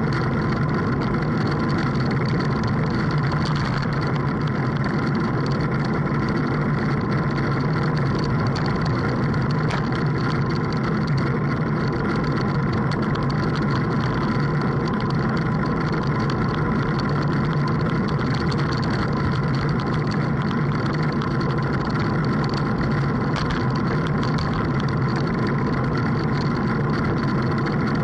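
A boat's engine running steadily at constant speed, with an even hum and no change in pitch or level.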